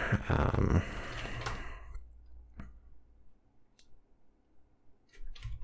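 Computer keyboard keystrokes: a short run of typing, then a few isolated key clicks with near quiet between them, and typing picks up again near the end.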